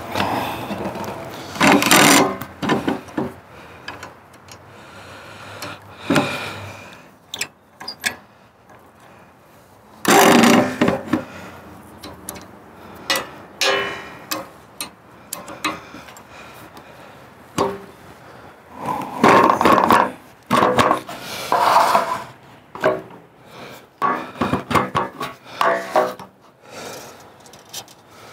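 Handling noises from setting up a chainsaw mill: its metal guide rail and brackets knocked, slid and scraped against a cedar log and wooden blocks, in irregular bursts. The loudest clusters come about two seconds in, near the middle, and again about two-thirds of the way through.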